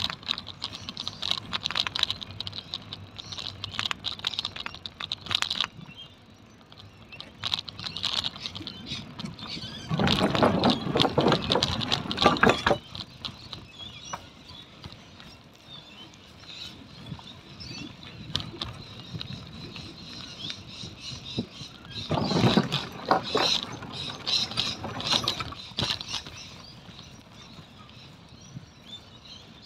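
Bicycle riding along a paved path: irregular clicking and rattling from the moving bike, with two louder rushing stretches, one about ten seconds in lasting a couple of seconds, the other about twenty-two seconds in lasting about three seconds.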